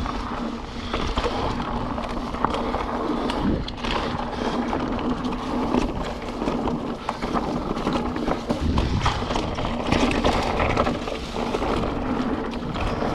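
Mountain bike rolling fast down a dirt trail: steady tyre and wind noise on the microphone, with frequent rattles and knocks from the bike over roots and rocks.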